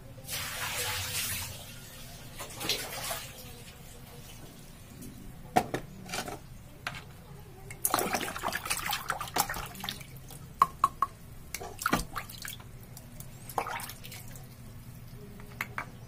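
Tap water running in short spurts, near the start, briefly around three seconds in, and for a longer stretch about eight seconds in, as mineral scale is rinsed off plastic faucet parts. Sharp clicks and knocks of the parts being handled come in between.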